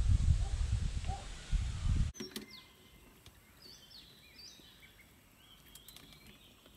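Loud low rumble of wind buffeting the microphone for about two seconds, cut off abruptly. After that it is quiet, with small birds chirping several times.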